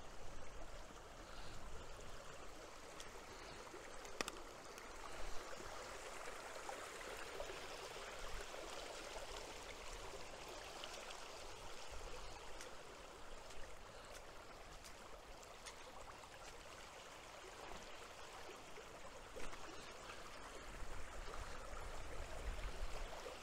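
Moorland stream running steadily, a continuous rush of water, with a couple of faint clicks about four and five seconds in and a low rumble rising near the end.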